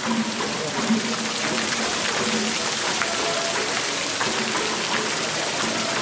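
Water of the Neptune fountain splashing steadily into its stone basin, a continuous hiss of falling water heard close up.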